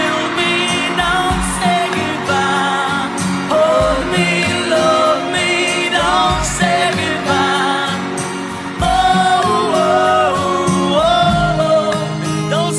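Pop-rock song: a sung melody line without clear words over guitar and band accompaniment.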